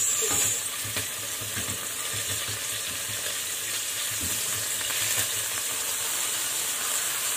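Chopped garlic sizzling steadily in hot oil in a stainless steel frying pan, with a spatula stirring it at first.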